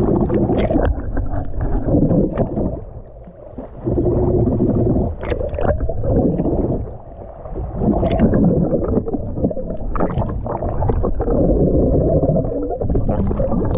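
Muffled underwater noise picked up by a GoPro held below the surface: rushing and gurgling water with scattered sharp clicks and ticks, swelling and dropping away a couple of times.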